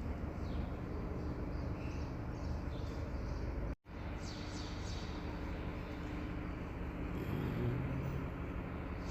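Steady, low background rumble with a few faint high chirps, no bangs or crackles; it cuts out completely for a moment a little before halfway.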